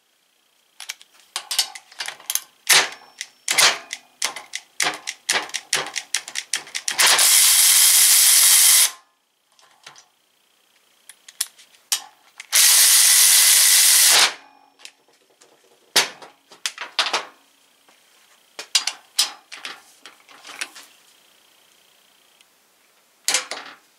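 Avid Power 12V cordless ratchet wrench running in two loud bursts of about two seconds each, driving a bolt tight for a torque test. Around them come many quick ratchet clicks and metal tool handling as a hand torque wrench is worked on the same bolt.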